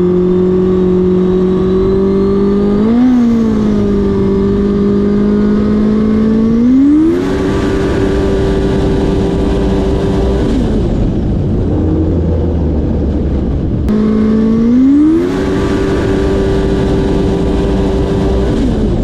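Race jet ski engine running at a steady idle, blipped once, then twice revved up to a higher steady pitch, held for a few seconds and let back down. It is being warmed up before a top-speed run.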